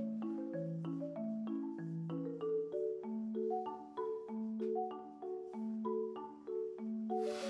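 Background music: a light marimba-like mallet melody over a repeating bass line, with a short burst of hiss near the end.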